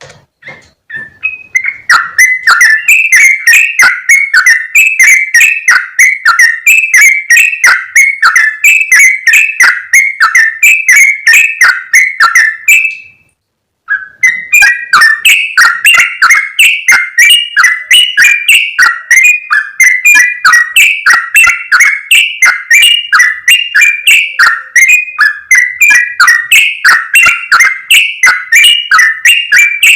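Yellow-vented bulbul (trucukan) giving its loud, noisy chattering call: a fast run of short notes, broken by a silence of about a second midway through.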